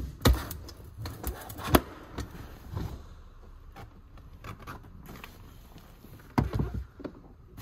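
Irregular knocks and clicks of objects being handled, with sharp knocks about a quarter second in and just under two seconds in, and a cluster of knocks near the end.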